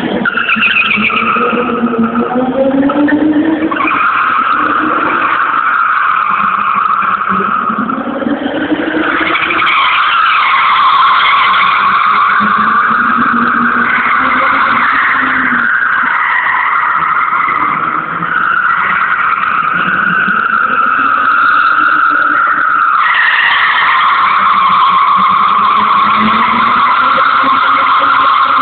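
Drift car sliding sideways, its tyres squealing almost without a break while its engine revs rise and fall again and again. The squeal jumps louder near the end.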